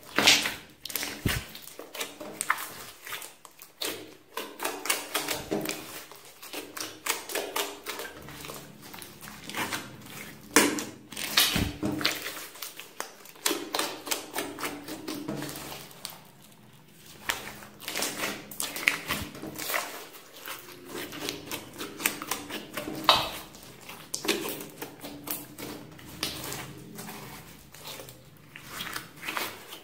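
Large mass of glossy slime being squeezed, kneaded and poked by hand, giving dense, irregular sticky clicks and pops.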